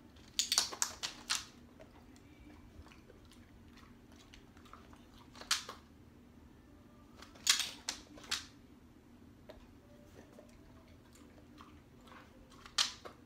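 Handheld dog-training clicker clicking in short groups, about half a second in, around five and a half seconds, around seven and a half to eight seconds, and near the end. Each click marks the moment the dog's chin touches the trainer's hand, ahead of a food reward.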